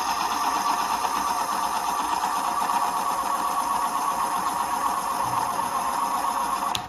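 Electric pencil sharpener running steadily for several seconds with an even motor whir, then cutting off suddenly near the end.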